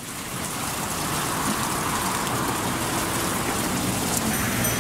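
Water sheeting down a wall fountain: a steady rushing splash that fades in over the first second, with a low rumble underneath.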